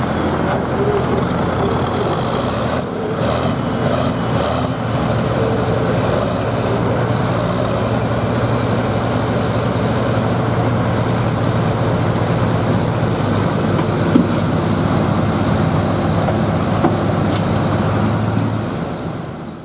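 International 1466 hot farm pulling tractor's 466-cubic-inch diesel engine idling steadily at the line, its pitch holding level without revving.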